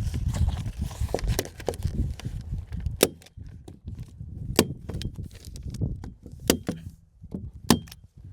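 Wind buffeting the microphone with a low rumble for the first few seconds, then four sharp, separate clicks or knocks about a second or two apart, like gear being handled.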